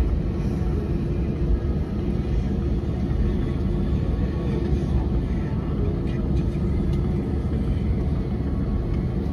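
Cabin noise of an Airbus A321-231 taxiing, heard from inside the cabin: its IAE V2500 jet engines at idle thrust with a steady low rumble and a faint hum.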